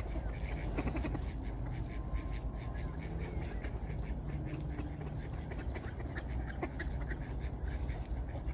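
Mallard ducks quacking repeatedly, over a steady low rumble.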